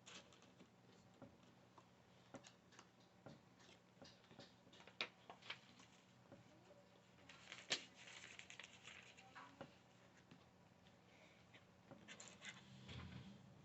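Faint, scattered clicks and light rustling of plastic building-set pieces being handled and fitted together, with a longer stretch of rustling about seven seconds in.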